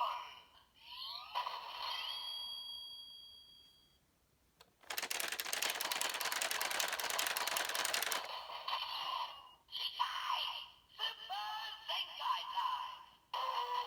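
Electronic sound effects from a GearTlinger toy blaster's speaker. Synth tones and a rising glide come first. After a short pause there are about three seconds of a rapid-fire shooting effect, then more synthesized voice and music.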